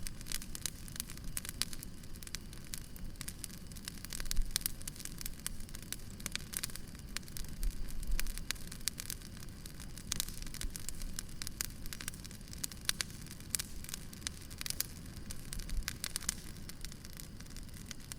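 Wood fire burning, crackling steadily with many sharp pops over a low rumble, and a few louder, deeper thuds about four and eight seconds in.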